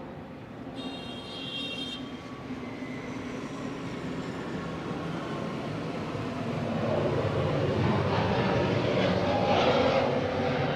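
Street traffic noise: a short high-pitched vehicle horn sounds about a second in, then the noise of a passing vehicle grows louder over the second half and begins to fade at the very end.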